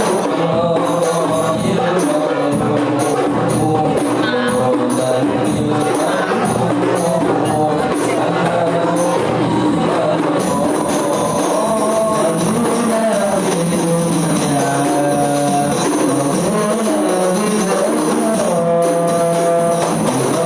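Rebana frame-drum ensemble playing a steady rhythm, with a sung melody over the drums.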